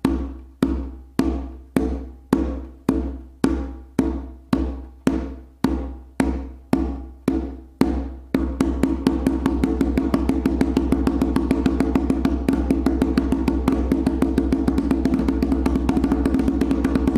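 Haitian hand drum played with the muff stroke: open tones damped by fingertip pressure on the head, giving a short, pressed tone. The strokes come evenly about twice a second, then after about eight seconds speed up into a fast, even run of strokes.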